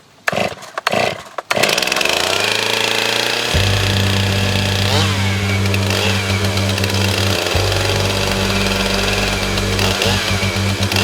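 Stihl MS 391 two-stroke chainsaw running at high revs on a chainsaw mill, ripping along a white oak log, with background music with steady bass notes laid over it.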